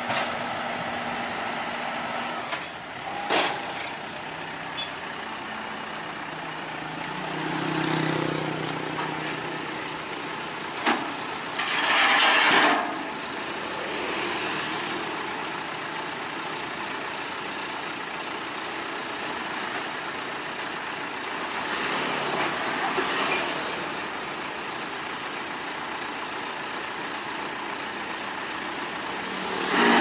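Vehicle engine running steadily, with a couple of sharp knocks and a louder swell of noise about twelve seconds in.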